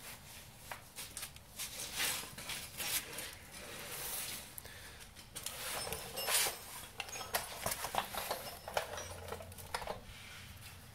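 Irregular rustling and scuffing handling noises, with scattered light clicks and knocks, from gloved hands moving a metal suspension bracket and tools around.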